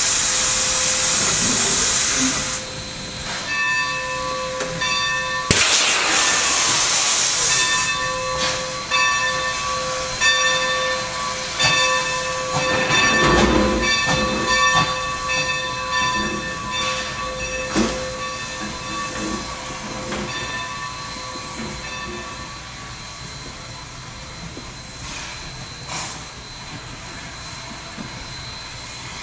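Skunk Train No. 45, a 2-8-2 Mikado steam locomotive, releasing steam in loud hisses at the start and again about five seconds in. It then moves off with repeated short ringing tones and the occasional thump, fading steadily as it draws away.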